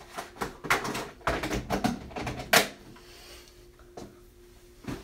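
Small objects being handled and set down, a quick run of clattering clicks and knocks with one sharp knock about two and a half seconds in, then only a few lighter knocks.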